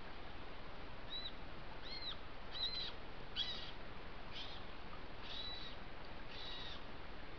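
A series of about seven short, high-pitched animal calls, each rising then falling in pitch, repeated roughly once a second over a steady background hiss.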